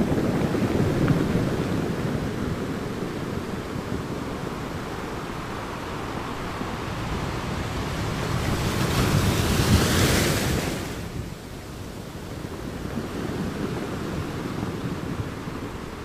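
Sea waves breaking on shoreline rocks: a continuous rush of surf. One large wave builds and crashes with a hissing wash of spray about nine to ten seconds in, then drops back suddenly to a lower wash.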